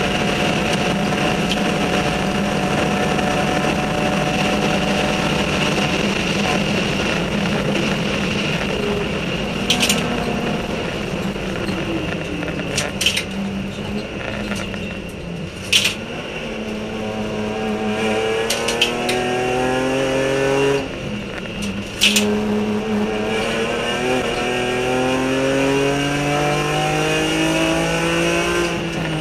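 Cabin sound of a BMW E46 M3 race car at speed. The engine runs steadily at high revs at first, drops off twice, and climbs in pitch again through the gears, with a few sharp clicks in the cabin.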